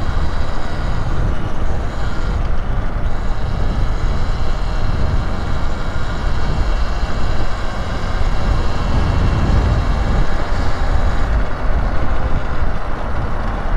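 Wind rushing over the microphone and tyre noise as a Talaria Sting electric dirt bike is ridden along, with a faint steady high whine from its electric drive.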